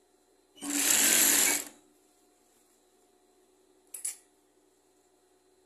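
Industrial sewing machine stitching in one short run of about a second, topstitching a waistband strip, then stopping. About four seconds in there is a single brief click.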